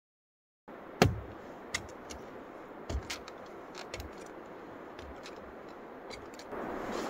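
After a moment of dead silence, a steady hiss with scattered light clicks and knocks, the sharpest about a second in.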